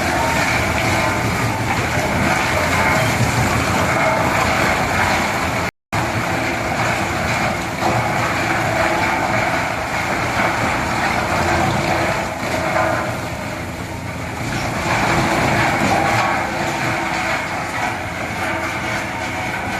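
Large industrial wood chipper running: a dense, steady mechanical noise with a constant high whine over a lower hum. The sound cuts out for a split second about six seconds in.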